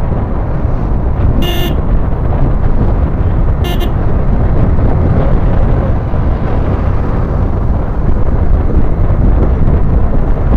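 Yamaha MT15 motorcycle riding, its engine running under heavy wind rush on the microphone, with two short vehicle horn toots about one and a half and three and a half seconds in.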